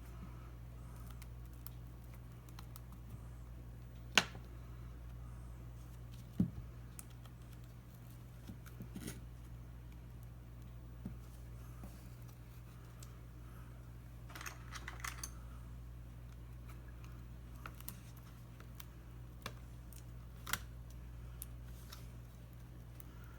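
Scattered small clicks and taps of hand tools working on a tablet's glass and frame, with two sharper knocks about four and six seconds in, over a faint steady hum.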